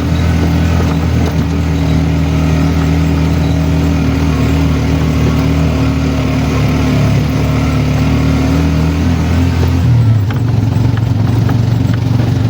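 Motor vehicle engine running steadily and loudly. About ten seconds in, its pitch steps up.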